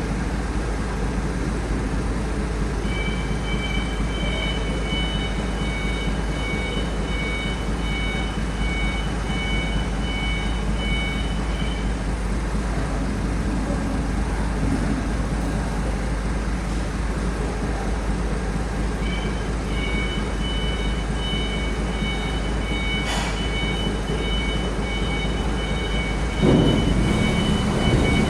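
Heavy vehicle engine running steadily with a deep rumble, joined twice by a fast repeating electronic beeping. There is a single sharp click near the middle and a louder surge of engine noise near the end.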